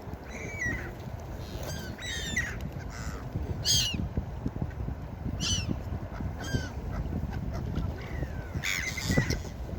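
Gulls calling: a string of short, harsh cries, about one a second and sometimes two together, several sliding down in pitch, over a steady low background rush.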